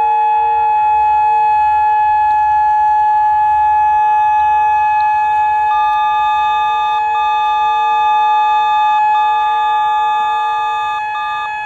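Whelen WPS-2810 electronic outdoor warning siren sounding its steady alert signal during a scheduled siren test. Several tones are held together at a steady pitch, with a higher tone breaking in and out in the second half.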